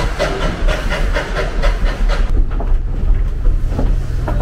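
The exhaust of a 1943 Baldwin narrow-gauge coal-fired steam locomotive, chuffing rhythmically at about three beats a second as it pulls the train. The chuffs fade about two seconds in, leaving a steady low hum.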